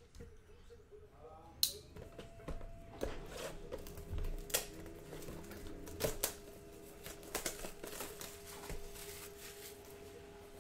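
Hands handling a shrink-wrapped trading-card box: irregular sharp taps, clicks and crinkles of cardboard and plastic wrap, with one loud snap near the start, over a faint steady hum.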